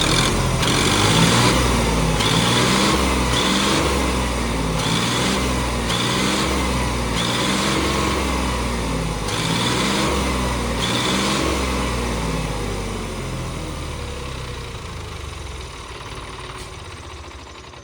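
John Deere 5210 three-cylinder diesel tractor engine running with its exhaust open, without the Bullet-motorcycle whistle piece fitted. It is revved in about nine short surges, then runs steadily and grows quieter toward the end.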